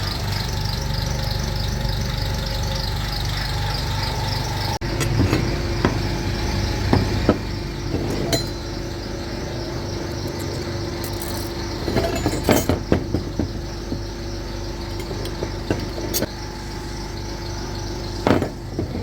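A steady mechanical hum, like an engine or motor running, with scattered sharp clinks and knocks of metal tools and engine parts being handled.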